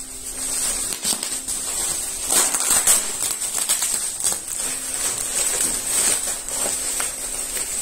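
Plastic bubble wrap and foil-lined padding crinkling and rustling as it is unwrapped by hand, a dense irregular crackle with many sharp little crackles.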